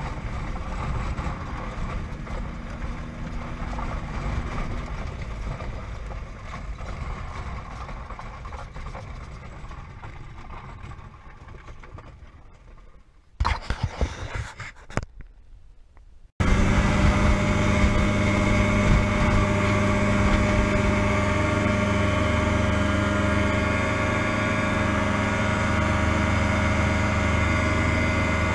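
Challenger ultralight's engine and propeller running, growing quieter over the first half. A few loud, uneven bursts come just before two-thirds in. Then it sets in suddenly as a loud, steady drone that holds to the end.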